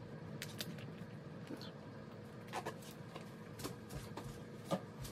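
Quiet room tone with a faint steady hum and a handful of soft scattered clicks and taps; the plainest tap comes near the end.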